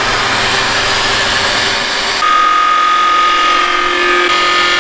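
Tormach CNC mill spindle running a T-slot cutter through a brass part, a steady machining noise. About two seconds in the low hum drops out and a steady high whine takes over.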